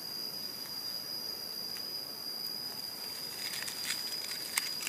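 Forest ambience: a steady high-pitched insect drone over a hiss, with a few sharp crackles and snaps of leaf litter and twigs being handled near the end.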